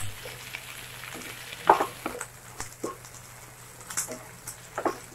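Chopped onion and capsicum stir-frying in a non-stick pan: a light sizzle, with a ladle scraping and knocking against the pan several times at irregular moments.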